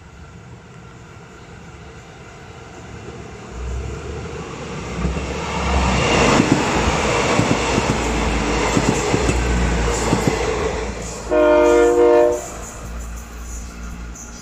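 A passenger train rumbling past, its wheel and rail noise building over several seconds and then easing off. It gives one horn blast of about a second near the end.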